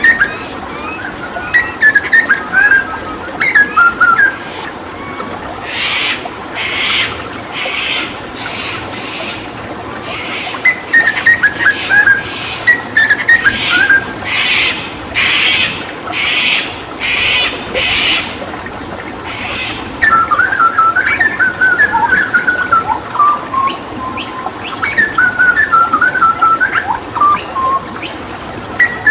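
Hooded butcherbird singing: quick runs of whistled notes that fall in pitch, with two stretches of harsh rasping notes repeated about twice a second in the middle. A steady wash of running water lies underneath.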